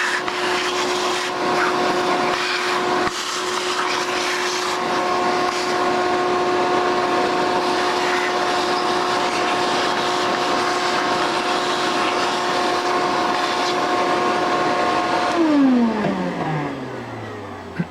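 Shop vacuum motor running steadily with a constant high hum over the rush of air, then switched off about 15 seconds in, its pitch falling as it spins down.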